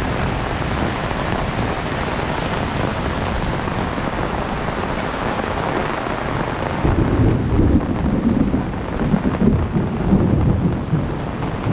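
Heavy rain falling steadily. About seven seconds in, a low rumble of thunder rolls in and lasts several seconds.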